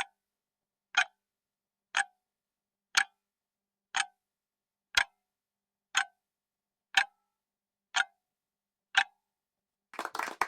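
Countdown timer sound effect ticking once a second, ten evenly spaced clock ticks. Near the end a burst of clapping starts.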